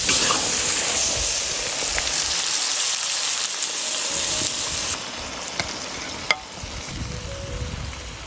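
Eggplant and egg stir-fry sizzling in a hot wok as it is stirred. The sizzle drops away about five seconds in, followed by a single sharp clink.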